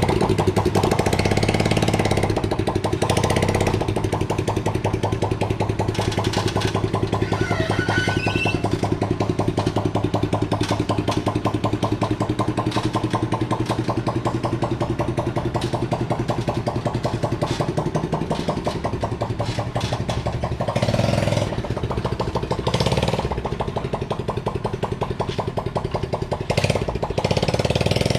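Small microcar powered by a Honda Supra motorcycle engine, running with a rapid, even firing beat and revving up briefly a few times in the second half as it pulls away. Its exhaust pipe is loose, which the owner and mechanic believe robs it of power.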